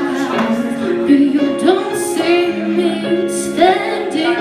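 A woman singing live into a microphone, sustaining and bending notes over accompanying backing music.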